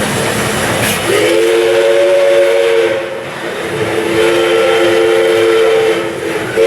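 Steam locomotive's whistle sounding two long blasts of about two seconds each, a steady chord of several notes at once, over the rumble of the train.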